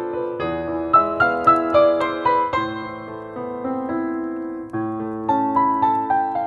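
Solo piano playing a slow melody over held chords, a piano cover of an Azerbaijani film tune; the playing thins out for a moment in the middle before new notes come in.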